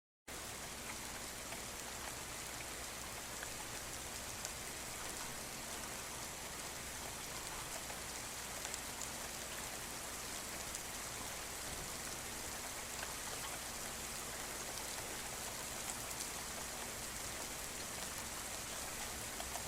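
Steady rain falling: a dense, even hiss with scattered individual drops ticking through it.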